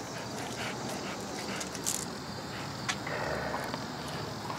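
Dogs chewing and tugging at a raw beef tongue, with a few sharp clicks of teeth on the meat.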